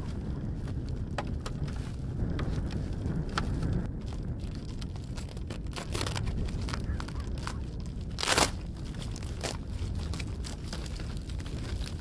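Flexible foil heater duct crinkling and crackling as it is handled and fitted to a portable diesel heater, with scattered clicks and one louder crunch about eight seconds in, over a low steady rumble.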